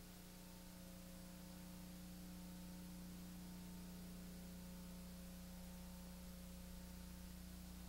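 Near silence: a steady low electrical hum with faint hiss, the noise floor of a blank recording.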